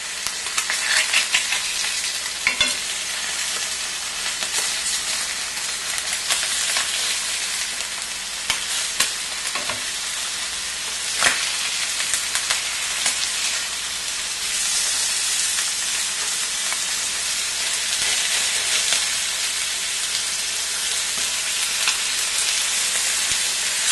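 Hake fillets sizzling in hot oil in a frying pan, with scattered scrapes and taps of a spatula as the pieces are nudged and pressed. The sizzle swells somewhat in the second half.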